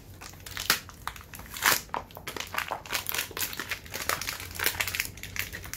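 The packaging of a set of new brake pads being opened and handled: the cardboard box and paper wrapping give a run of irregular crinkling and crackling rustles.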